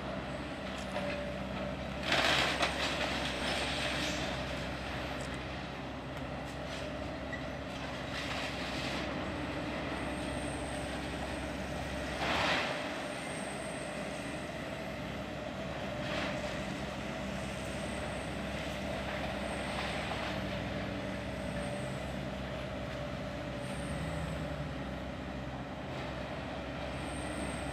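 Link-Belt demolition excavator's diesel engine running steadily as its long-reach arm works at the building. Two loud crashes of falling debris, about two seconds in and again near the middle, with a few smaller knocks later.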